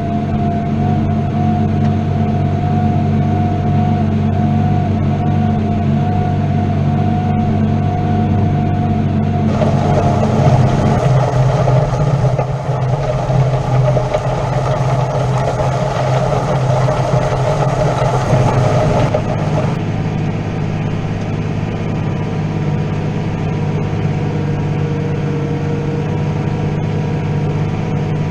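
New Holland T7.210 tractor's diesel engine running steadily under load while ploughing, heard from inside the cab. About a third of the way in, a hiss rises over it and the engine note changes, then settles back to a steady run about two-thirds of the way through.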